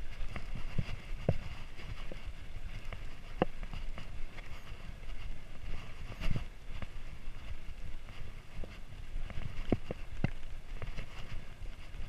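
Mountain bike rolling over a dirt trail: a continuous low rumble of the tyres on the ground, with irregular sharp clicks and knocks as the bike rattles over bumps.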